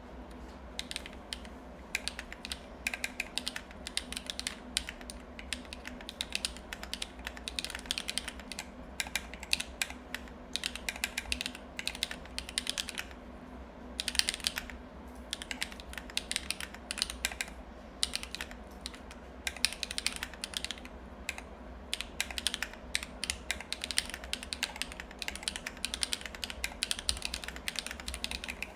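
Typing on a MechVault Vault35 mechanical keyboard with factory-lubed HMX Cheese switches, 46 g springs, DSS keycaps and a full ABS plate: fast runs of keystroke clacks with a couple of short pauses, over a steady low background hum.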